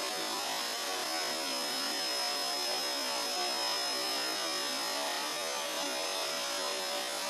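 Vacuum cleaner running steadily: a continuous hiss with a constant high motor whine.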